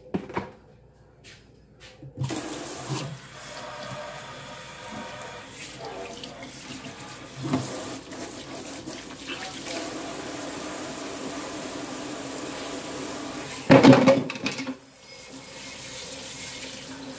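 Kitchen tap running into a stainless steel sink while hands are rinsed under it, and then a knife blade. About two seconds in the water starts, and near the end there is a brief, louder splash.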